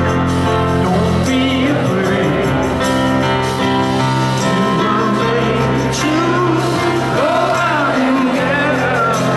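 Live concert music: a male lead vocal singing over piano and band, amplified through a stadium PA and heard from the crowd.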